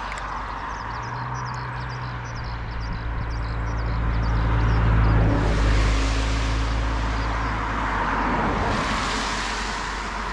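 A motor vehicle passing by: a steady engine hum with tyre hiss that swells to its loudest about halfway through and then fades away.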